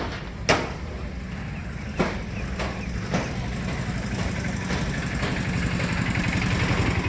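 A motor vehicle engine running steadily, growing gradually louder toward the end, with a series of sharp knocks in the first three seconds.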